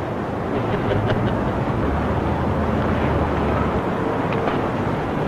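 Steady outdoor rumble and hiss of wind and distant city traffic, with a few faint ticks.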